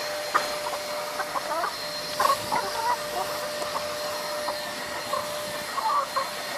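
Backyard hens clucking in short, scattered calls while feeding, over a steady background hum.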